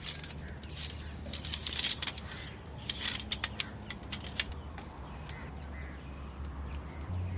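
Metal poles and legs of a folding camp stand clicking and rattling as it is unfolded, in two clusters of quick clicks, one about two seconds in and another from about three to four and a half seconds.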